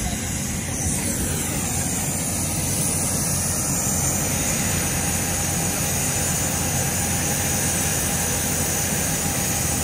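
Jet aircraft engines running at an airport, a loud steady rush with a thin high whine.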